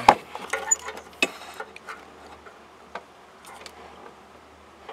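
Scattered sharp clicks and light knocks, about eight in all and loudest right at the start, as a black plastic multi-pin wiring-harness connector for a BMW top hi-fi amplifier is handled.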